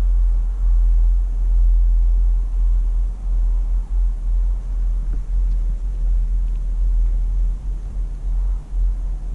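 Wind buffeting a GoPro Hero5's microphone on a moving chairlift: a loud low rumble that swells and dips unevenly.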